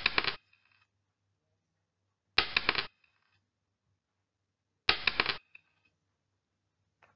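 Countdown timer sound effect: a quick rattle of clicks lasting about half a second, repeated three times about two and a half seconds apart as each number ticks down.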